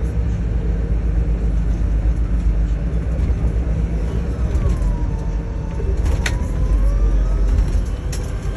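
Airport shuttle bus driving, a steady low engine and road rumble heard from inside the cabin. A faint whine dips and rises again through the middle, and a sharp click sounds a little after six seconds in.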